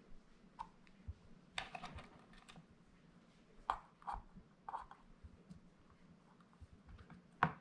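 Faint, irregular crisp clicks and crunches as wooden toothpicks are pushed through cucumber slices into a green bell pepper's firm flesh, the sharpest click near the end.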